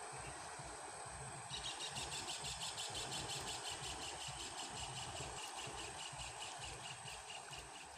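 A small engine running steadily, with a rapid even ticking, about four to five a second, that starts about a second and a half in.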